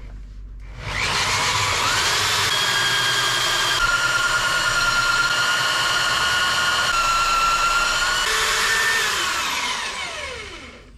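Electric drill boring into wood: it spins up, runs under load with its whine stepping in pitch a few times, then winds down near the end.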